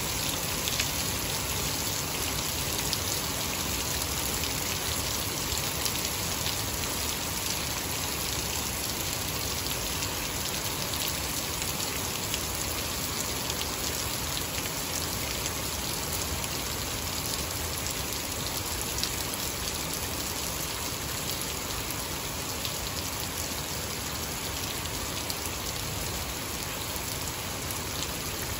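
Heavy rain pouring steadily onto a grass yard and wet ground: a dense, even hiss with scattered ticks of individual drops.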